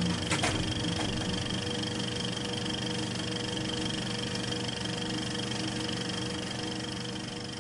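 A steady droning hum of several held tones over a faint hiss, with a couple of short clicks about half a second in, beginning to fade near the end.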